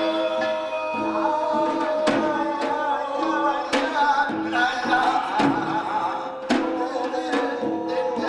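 Korean bina-ri blessing chant sung by a male voice over samul nori percussion, with regular sharp drum and gong strikes.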